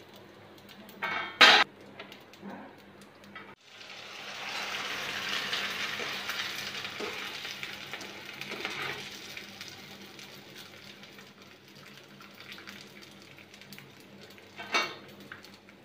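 Rice vathal (fryums) frying in hot oil in a kadai. A sizzling hiss swells about four seconds in and dies down over the next several seconds. A metal ladle knocks sharply against the pan about a second in and again near the end.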